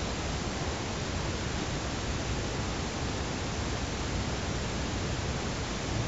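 Steady, even hiss of background noise, with no distinct snore or snort standing out above it.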